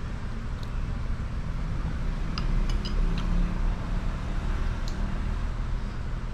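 Steady low background rumble, with a few light clicks about halfway through.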